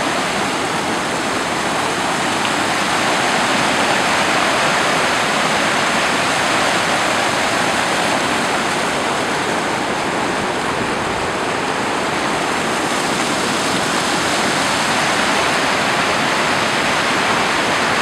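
River whitewater rapids rushing steadily over rocks, a loud, even wash of water.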